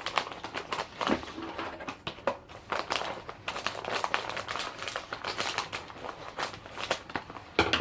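Crinkly plastic snack bag being handled, with rapid, irregular crackling and rustling and a louder rustle near the end.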